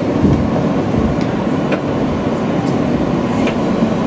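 A New York City subway train heard from inside the car as it pulls out of a station: a steady rumble of wheels and running gear, with a few sharp clicks over the rail joints.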